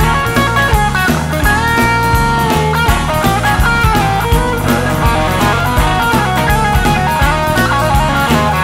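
Rock music: electric guitar lines with bent notes over a steady drum kit beat, no singing.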